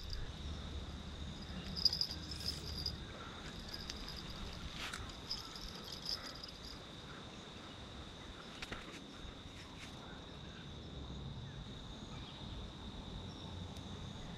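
Insects chirring in one steady, unbroken high-pitched trill, fairly faint, with a few soft clicks scattered through it.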